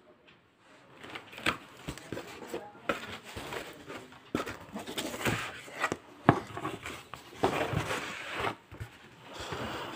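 Cardboard shipping carton being opened by hand: flaps and packing tape scraping and rustling, with irregular taps and knocks, starting about a second in.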